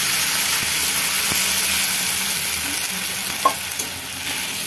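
Water poured into a kadhai of hot oil with fried garlic, turmeric and chilli powder, sizzling hard as it meets the oil and slowly dying down. A short knock about three and a half seconds in.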